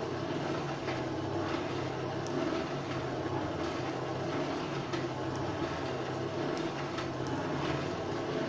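Steady rumble and hum of a blacksmith's forge fire with its blower running, with a few light clicks.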